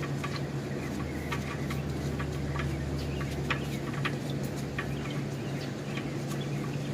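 Engine oil dripping irregularly into a drain pan from the open oil-filter mount, a few separate ticks a second, over a steady low hum.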